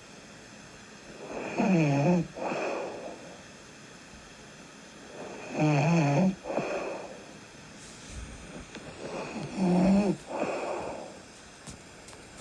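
A sleeping person snoring with steady breathing: three loud pitched snores about four seconds apart, each followed by a softer breathy breath.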